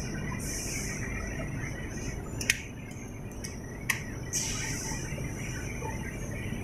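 Steady low machinery hum with a background hiss, broken by a few short high hisses and two sharp clicks about a second and a half apart.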